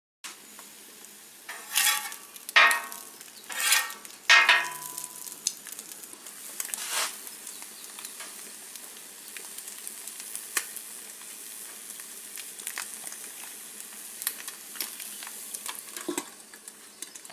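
Ham and eggs frying on a hot flat-top griddle: a steady sizzle with small scattered pops. In the first few seconds come several loud metal-on-metal scrapes and clanks.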